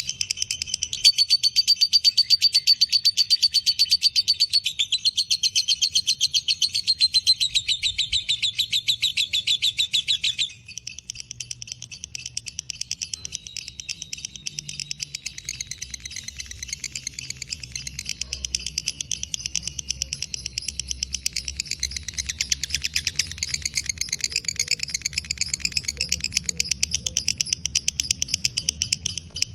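Lovebird giving its long 'ngekek' song: an unbroken, very rapid, high-pitched chattering trill. It drops suddenly in loudness about ten seconds in and carries on more softly.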